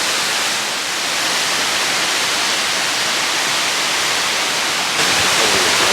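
Aber Falls (Rhaeadr Fawr), a high waterfall, giving a steady loud rush of falling water, a little louder about five seconds in.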